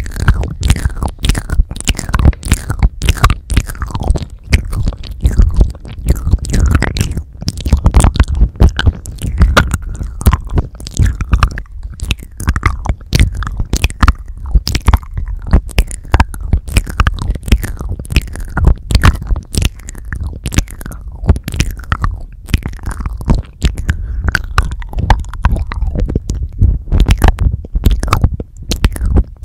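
Close wet mouth sounds and licking right on the microphone capsules of a Tascam DR-40X handheld recorder: a rapid, unbroken stream of sticky clicks and lip smacks, with deep thuds where the mouth presses against the mics.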